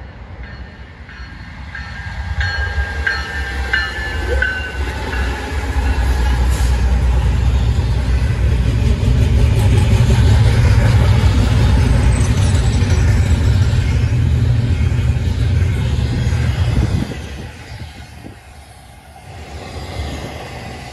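Norfolk Southern diesel locomotives hauling a double-stack container train, their deep engine rumble growing louder as they approach and pass. The rumble drops off sharply about seventeen seconds in, leaving the quieter rolling of the loaded container well cars.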